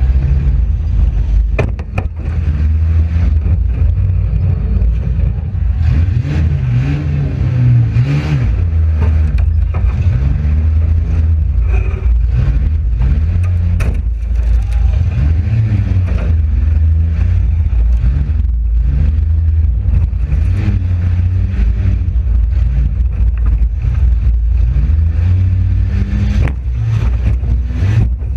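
Front-wheel-drive Oldsmobile demolition derby car's engine revving up and down over and over with a heavy low rumble. It is punctuated by a few sharp bangs, near the start and about halfway, that are typical of car-to-car hits.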